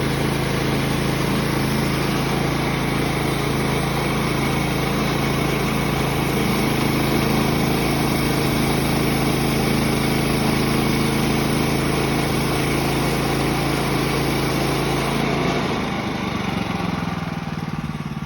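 Sawmill engine running steadily at speed with a constant low hum, then throttling down to a lower idle about sixteen seconds in.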